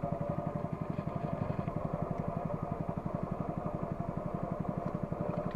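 Small boat engine running at a steady speed with an even, rapid putter as the boat moves along the river.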